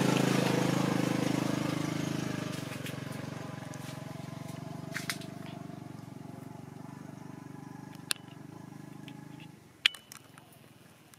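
A motor vehicle's engine running steadily, loudest at first and fading away over about nine seconds before cutting off abruptly. A few sharp clicks sound on their own, twice close together near the end.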